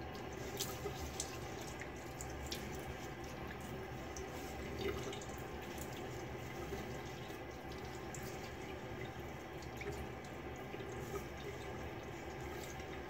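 Tap water running into a sink with splashing and drips as a face is rinsed off after a razor pass.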